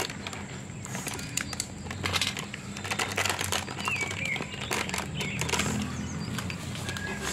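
Plastic packet of semolina being cut open and handled, crinkling and crackling in quick irregular bursts. A bird chirps briefly about four seconds in.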